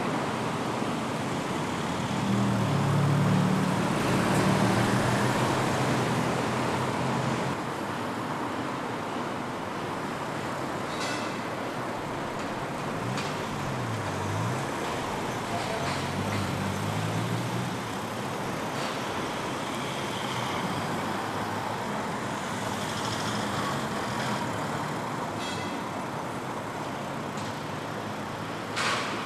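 City street traffic: vehicle engines and tyre noise over a steady road hiss. The engine notes rise and fall as vehicles pass, and there are a few faint clicks.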